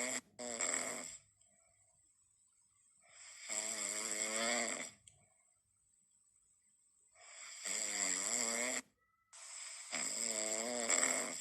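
Snoring in deep sleep: four drawn-out snores, each a second or two long with a wavering pitch. The last two come close together, and there are quiet gaps of a couple of seconds between the others.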